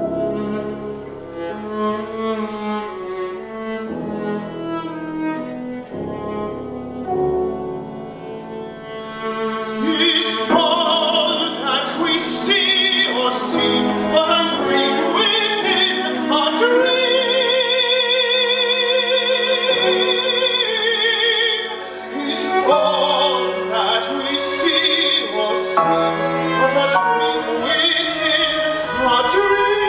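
Operatic music: bowed strings play a slow passage, and about ten seconds in a man's operatic voice enters with strong vibrato, singing over them.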